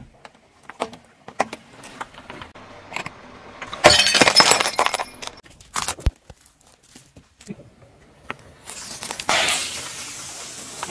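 Objects being crushed under a car tyre on asphalt: scattered crackles and snaps, a loud burst of crunching and breaking about four seconds in, and a single sharp crack about six seconds in. A steady hiss starts at about nine seconds.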